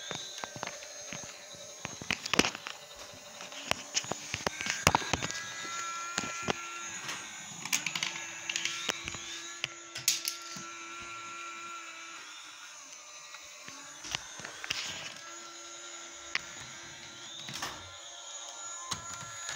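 Toy police helicopter running, its small motor whirring as the rotor spins, with steady electronic tones that start and stop and some curved glides. Sharp clicks and knocks come throughout.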